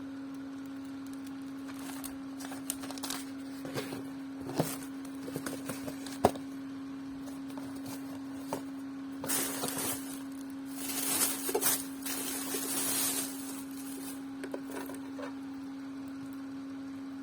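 Unpacking handling noises: scattered taps and knocks, one sharp knock about six seconds in, and bursts of rustling packaging from about nine to thirteen seconds in, over a steady hum.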